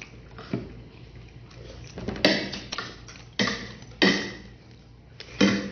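Someone eating soup: several short slurps of broth from a metal spoon, a second or so apart, with a light clink of the spoon on the bowl.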